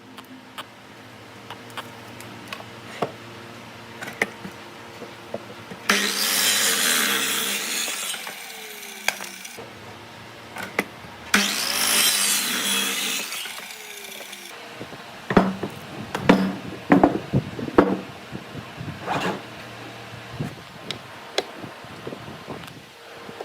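Woodworking power tool cutting wood in two passes of a few seconds each over a steady machine hum, followed by a series of sharp knocks and taps on wood.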